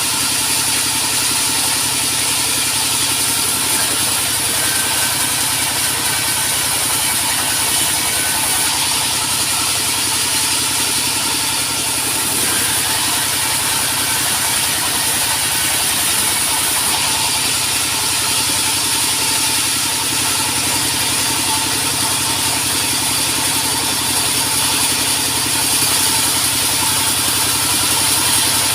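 Sawmill engine running steadily at an even speed, with a constant hiss above its hum.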